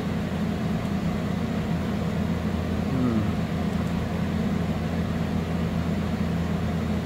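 A steady low mechanical hum that keeps an even level throughout, with no knocks or changes.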